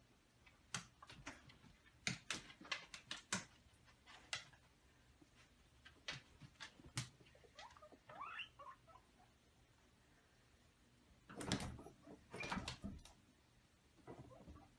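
Guinea pigs and a cat moving about a wire guinea pig cage with wood-shaving bedding: scattered light clicks and scuffles, bunched around two seconds in and again near twelve seconds, with a short squeak rising in pitch about eight seconds in.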